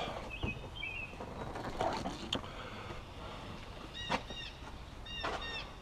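A bird calling outdoors: clusters of short, arched, repeated notes about four seconds in and again near the end. Faint clicks and rustles come from handling between the calls.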